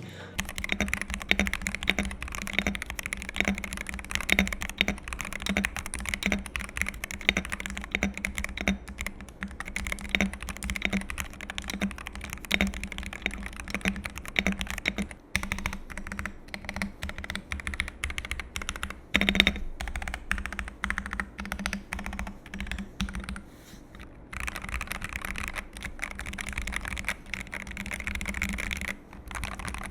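Continuous typing on a Keychron K6 Pro mechanical keyboard with light linear switches, a steady stream of keystrokes. Its sound-absorbing foam and silicone bottom pad keep it fairly quiet. One louder stroke comes about two-thirds of the way through.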